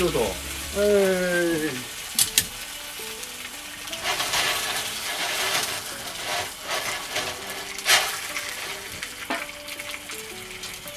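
Wagyu sirloin sizzling in beef tallow in a cast-iron skillet over a charcoal grill. The sizzle grows fuller from about four seconds in, with a few sharp pops and crackles of spattering fat.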